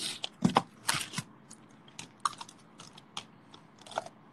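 A run of irregular clicks and taps, the loudest few in the first second, then lighter scattered ones.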